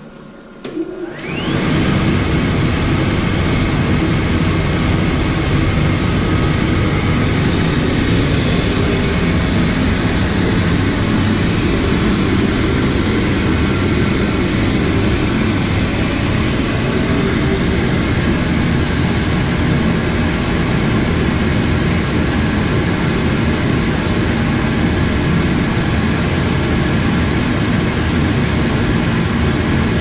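Gas power burner on a fire-tube steam boiler switching on. A click comes about half a second in, then its combustion-air blower spins up with a short rising whine and runs with a loud, steady rush of air. This is the pre-purge before the gas valve opens and the burner lights.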